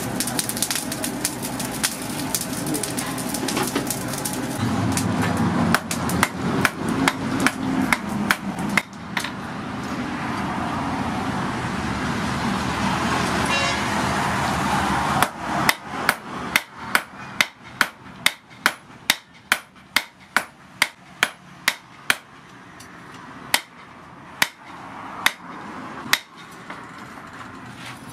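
A steady rush of forced air through a forge fire, with a few scattered metal knocks, takes up the first half. Then a hand hammer beats red-hot rebar on a steel anvil in a steady run of blows about two a second, slowing to a few spaced strikes near the end.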